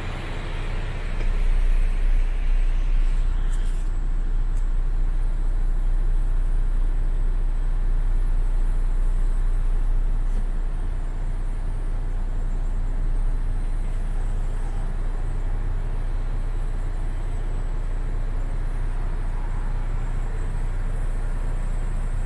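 MAN TGX 26.440's common-rail straight-six diesel idling, heard from inside the cab as a steady low hum that gets a little louder about a second in.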